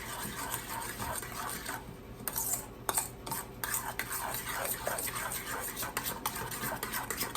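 A utensil stirring cream of chicken soup and white wine in a bowl, scraping steadily with many small clinks against the sides.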